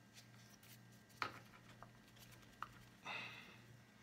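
Near silence with a few faint clicks and a short rustle near the end as a hot sauce bottle is handled and opened.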